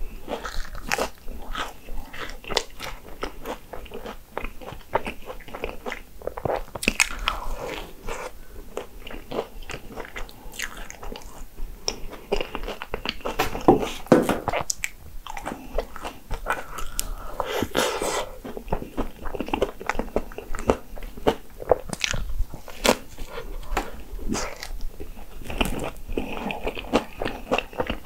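A person biting into and chewing crisp Hong Kong egg waffle: many short crunches, close together, with chewing in between.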